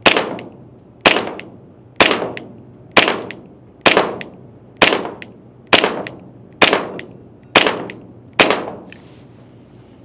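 PTS ZEV 1911 gas blowback airsoft pistol firing ten shots at a steady pace of about one a second. Each shot is a sharp crack of gas and slide blowback that trails off briefly.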